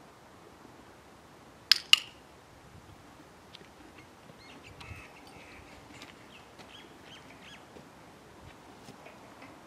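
A handheld training clicker giving a sharp double click about two seconds in, marking the horse's touch of the target stick. Faint scattered ticks and rustling follow a couple of seconds later.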